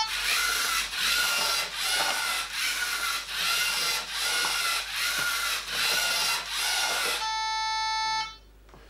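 Lego Mindstorms EV3 robot's motors and gears whirring as it drives and turns, rising and falling in regular pulses a little faster than once a second. Near the end the brick sounds a steady electronic beep for about a second.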